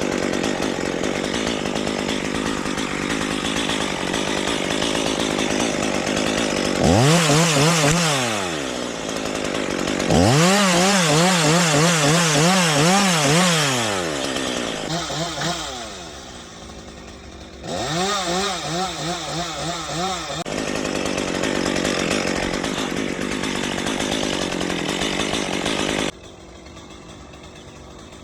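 Chainsaw cutting through a wood limb, running loud and steady. Three times the engine is revved hard, its pitch wavering up and down in the cut. About 26 seconds in it drops suddenly to a much quieter run.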